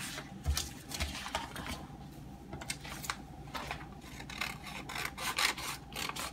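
Scissors cutting through adhesive vinyl on its paper backing: a string of short snips with rustling of the sheet, coming quicker in the second half.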